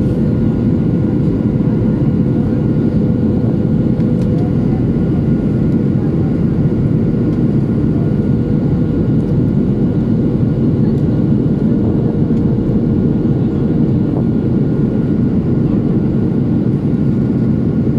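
Steady cabin noise of a Boeing 737-800 in flight, heard from inside the cabin: an even, loud rush of engine and airflow noise from its CFM56 turbofans, with a faint steady tone above it.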